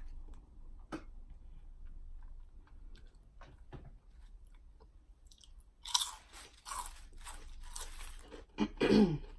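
Close-up crunching and chewing of Lay's Flaming Hot Dill Pickle potato chips. The bites are faint at first and loudest about six seconds in. Near the end comes a short, loud, low burp.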